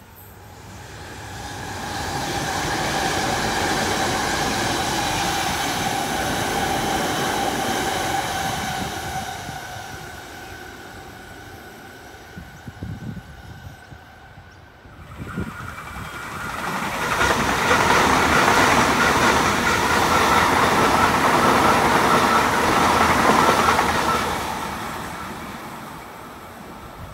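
Two electric passenger trains passing through stations at speed, one after the other. The first swells and fades over about eight seconds with a steady motor whine over the wheel rumble; after a short lull with a few clicks, a second, louder pass of wheel and rail noise builds and fades.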